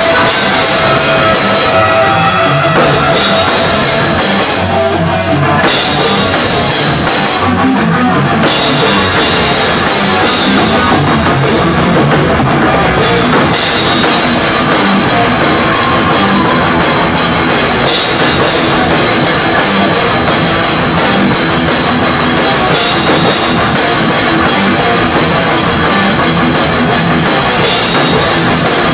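Live thrash metal band playing loudly, the drum kit and cymbals up front over distorted guitar. It breaks off in short stops a few times in the first eight seconds, then runs on without a break.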